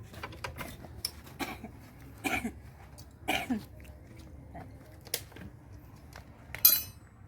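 Scattered clicks and knocks of hand tools and metal parts being handled during engine work, ending in a sharp metallic rattle near the end. Two short throat sounds, like coughs, come a second apart in the middle.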